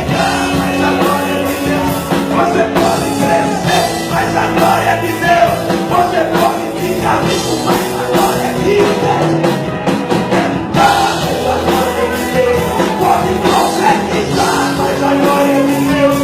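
A worship band playing a rock-styled song, with singing over the band.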